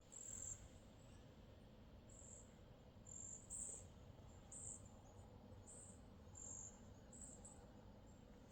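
Faint, high-pitched chirps from wildlife, short and repeating about once a second, over a low outdoor rumble.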